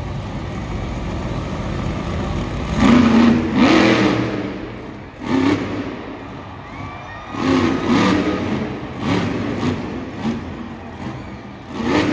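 Monster truck engines running with a steady drone, then revving hard in loud bursts from about three seconds in, repeating every second or two.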